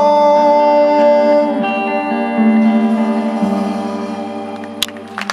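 Live band playing the closing bars of a song: electric guitar and violin hold long ringing notes that shift pitch a few times and fade away toward the end, with one short sharp click near the end.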